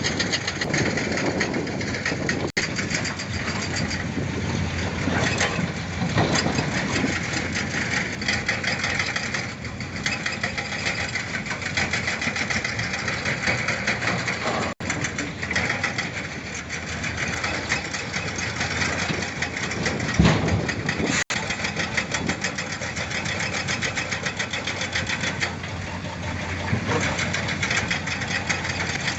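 Heavy diesel engines of excavators and dump trucks running, with a fast, even knocking pulse. The sound drops out abruptly for an instant three times.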